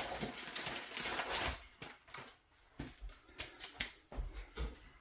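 Raw chicken strips being stirred in a bowl of thick soy and cornstarch marinade: wet squelching at first, then irregular short knocks against the bowl.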